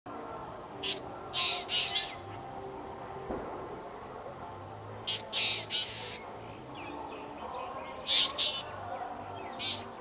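Drongo calls: short, harsh calls in clusters about a second in, around five seconds, around eight seconds and near the end. Under them runs a steady, rapidly pulsing insect trill.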